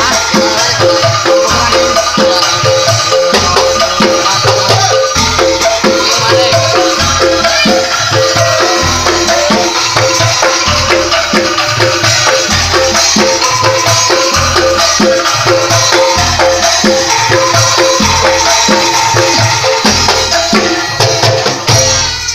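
Live music: a wooden xylophone played with mallets in quick repeated notes over a steady, deep drum beat, stopping right at the end.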